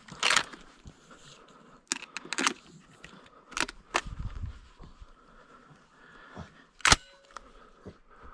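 Sharp metallic clicks and clacks of a shotgun's action being worked while it is reloaded: a clack at the start, a cluster of clicks around two and four seconds in, and the loudest clack near the end.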